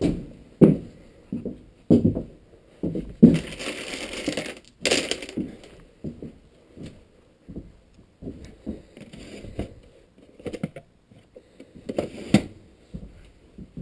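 Footsteps of a person walking slowly on a hard floor, heard up close from a body-worn camera, with a short stretch of rustling and clinking about three to five seconds in and again near the end.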